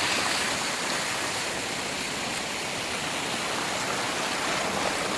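Fast-flowing river water rushing steadily, the current running strong.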